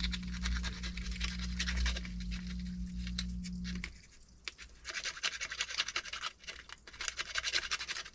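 Sandpaper rubbing on the edges of a 3D-printed plastic part in quick, irregular scratchy strokes. A low steady hum underneath stops about four seconds in, and the scratching continues on its own.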